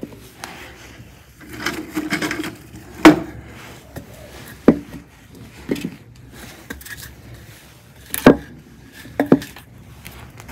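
Split firewood logs being stacked by hand on the floor of a tandoor: a series of sharp wooden knocks as the pieces strike each other and the oven floor, the loudest about three seconds in and about eight seconds in, with a quick double knock near the end and scraping as the logs are shuffled into place.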